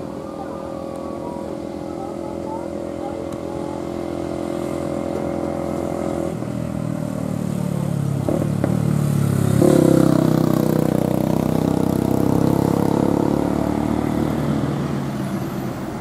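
Motorcycles and a car passing on a road, their engines running steadily and growing louder as they approach, loudest about ten seconds in before easing off.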